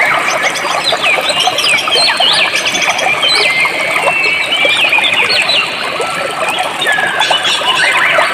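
Birds chirping busily, many short rising and falling whistles overlapping, over the steady rush and babble of a flowing stream.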